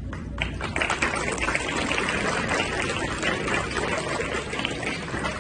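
Steady crowd hubbub from an audience, with many small clicks and knocks running through it.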